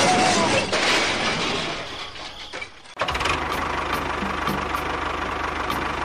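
A loud rushing noise fades out over the first few seconds. It is followed by a small engine running steadily, with an even knocking beat.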